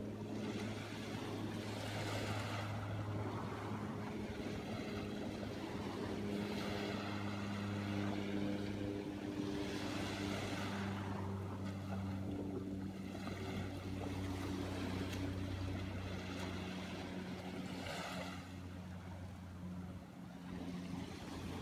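Small waves washing onto the sand, swelling and fading every few seconds, over a steady low motor hum.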